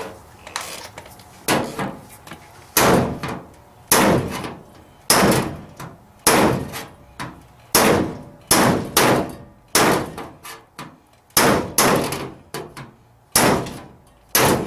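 Metal-working hammer striking the steel rear quarter panel of a 1972 Ford Custom to reshape its body crease: about a dozen blows roughly a second apart, each with a short metallic ring.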